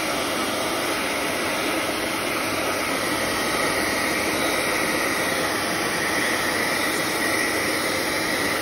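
Handheld hair dryer blowing steadily, drying a wet cat's fur: an even, unchanging whoosh.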